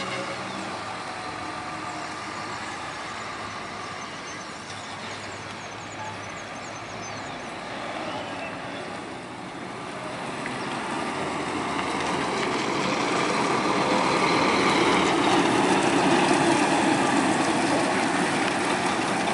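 Scania K410 coach's diesel engine running as the double-decker bus drives slowly past, growing louder over the second half as it comes close, then easing slightly.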